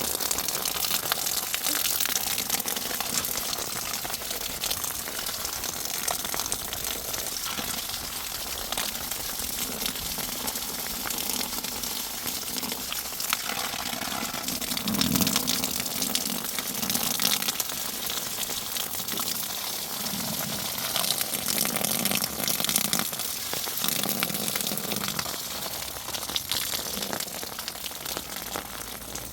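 Steady rushing water, a continuous hiss with no pauses, with a few brief low swells around the middle.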